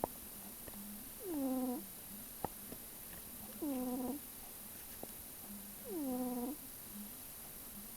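Cat snoring in its sleep: three snores about two seconds apart, each a short whining tone that falls in pitch, with a faint low hum between them.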